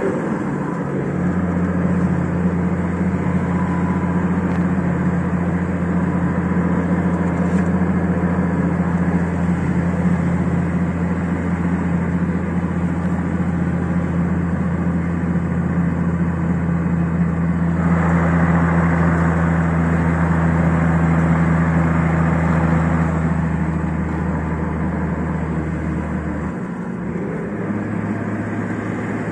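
Nissan Patrol TD42T's 4.2-litre inline-six turbo diesel, breathing through a 3-inch straight-through exhaust, heard from inside the cabin while driving. It gives a steady low drone that grows rougher for a few seconds past the middle and shifts in pitch near the end.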